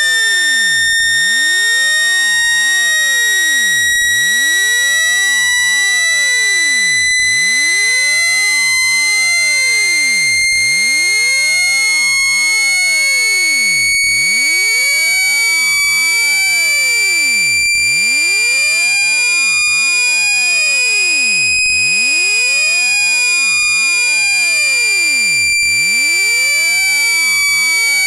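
Loud, continuous electronic speaker-cleaning tone, a buzzy high pitch near 2 kHz that slowly rises and dips slightly near the end. It is played at full volume to vibrate water and dust out of a phone speaker.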